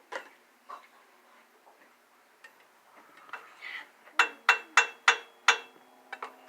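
A few sharp clicks, then a quick run of five ringing metallic clinks, as of hard metal parts being knocked or handled.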